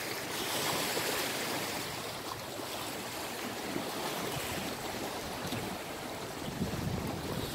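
Small lake waves washing against the shore and jetty, a steady wash of water. Wind starts to buffet the microphone near the end.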